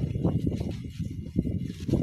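A soapy sponge scrubbing ceramic plates by hand: a steady rubbing scuff, with a few light knocks of dishes against each other.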